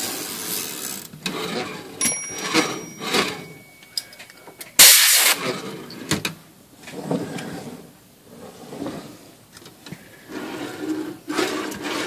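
Royal 10 typewriter carriage being run back and forth on its freshly degreased rails and rollers: a rolling, rubbing rattle that swells and fades with each pass, its movement still a little rough and only just starting to feel better. A short, loud hiss breaks in about five seconds in.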